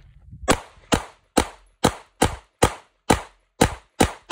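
Rapid string of about ten 9mm pistol shots from an HK P30, roughly two a second, each a sharp crack with a short ringing tail.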